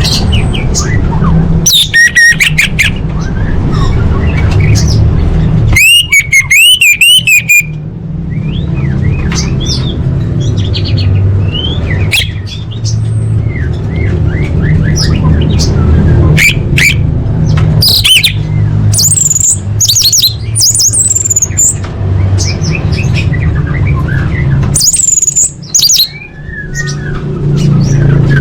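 Orange-headed thrush singing a long, varied song of quick warbled phrases, a rapid trill and high sharp whistles, over a steady low hum.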